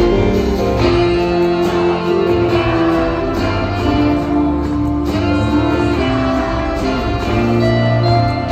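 Music with a plucked guitar melody over a steady bass.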